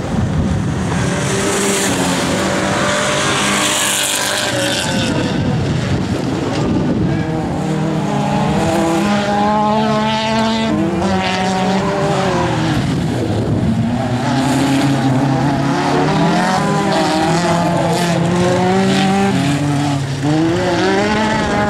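Autocross race cars' engines revving hard on a dirt circuit, the pitch climbing and dropping again and again with gear changes and corners, sometimes two engines overlapping.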